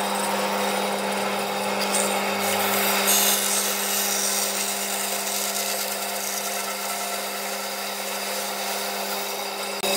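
Bandsaw running with its blade cutting through a dry, weathered branch: a steady motor hum under the rasping noise of the cut.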